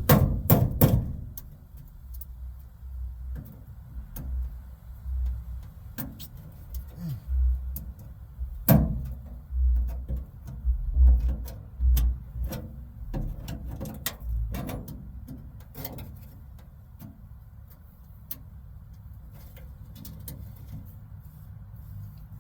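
Irregular clicks, knocks and dull thuds of hand work inside a car door, metal parts clinking and the door shell bumping. A burst of sharp knocks opens it, a busier run comes in the middle, and it grows quieter after about sixteen seconds.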